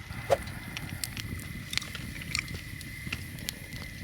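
Wood fire crackling under shellfish grilling over it: scattered sharp clicks and pops over a low steady rumble, with one louder short pop about a third of a second in.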